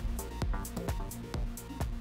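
Electronic outro music with a steady beat: a deep kick drum about twice a second under a bass line and hi-hats.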